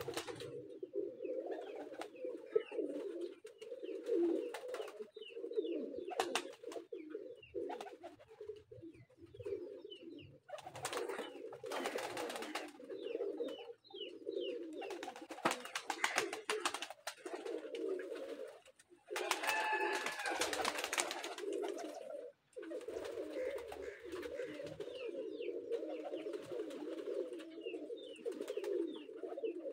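A flock of domestic pigeons cooing continuously, many low overlapping coos, with scattered clicks and brief higher chirps over them.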